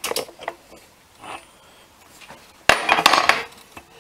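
Socket wrench on a long extension working a nut loose inside an OMC Cobra sterndrive lower unit: metal clinks and clanks, with a short flurry of them about three seconds in as the loudest part.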